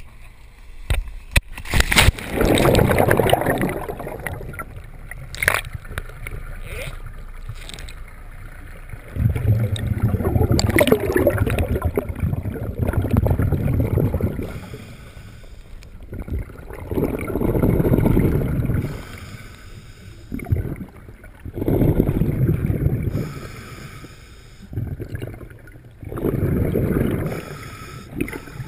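Scuba diver's exhaled bubbles rumbling past an underwater camera in bursts, one every four to five seconds with each breath. A few sharp knocks come in the first couple of seconds as the camera goes into the water.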